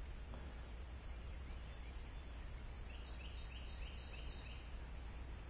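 Steady high-pitched insect chorus, crickets, with a short run of about six quick falling calls in the middle.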